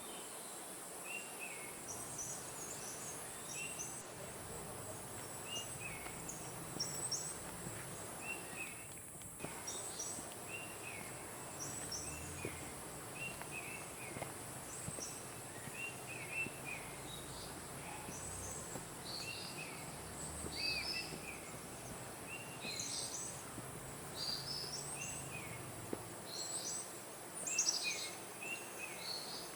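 Forest birds chirping: many short, high chirps repeat every second or so, over a steady high-pitched insect hiss.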